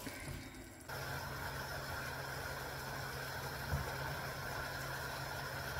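Steady low rumble and hiss of a gas hob burner flame under the wok, starting about a second in after a cut, with a soft knock near the middle.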